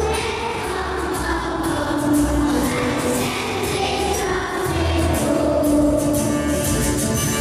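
Group singing with instrumental accompaniment: a slow song in held notes.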